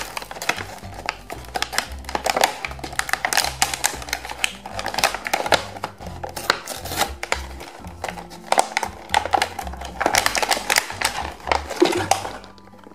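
Plastic toy packaging crinkling and crackling as a bag and clear blister are pulled open by hand, over background music.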